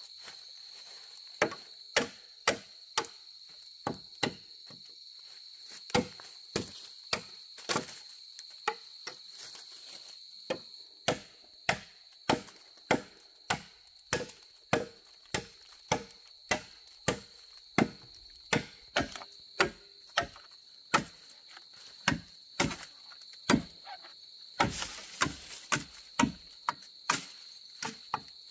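Machete chopping into a green bamboo pole: a long series of sharp chops, about one to two a second. Steady high-pitched insect calls run behind.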